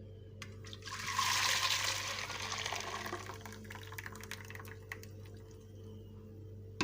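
Blended liquid curry base of yogurt, gram flour and water being poured from a blender jar into a pan: a rushing pour, loudest in the first couple of seconds and then trailing off, with a few light clicks.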